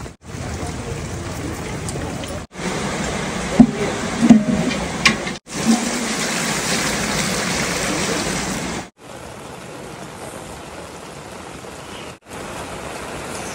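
A run of short cuts full of steady rain and water noise. A little past the middle, water is poured from a steel vessel into a large aluminium pot, a strong hiss lasting about three seconds, and a few loud knocks come just before it.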